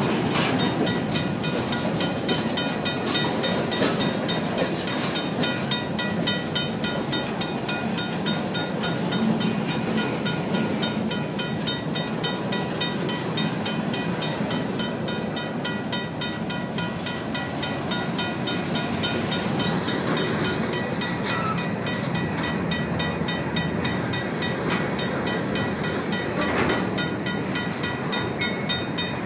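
Freight train of covered hopper cars rolling past close by: steady rumble of steel wheels on rail with clickety-clack from the wheels. A mechanical crossing bell rings steadily over it in quick, even strokes.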